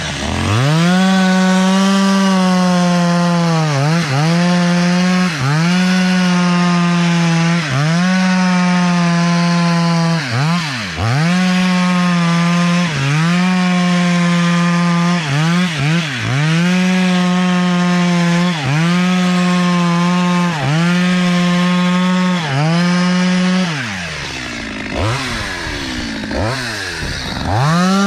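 Stihl two-stroke chainsaw cutting through pond ice at high revs. Its pitch dips sharply and recovers about every two seconds as the throttle is eased and reopened. About 24 seconds in it drops to lower revs with a few quick blips, then runs at full revs again near the end.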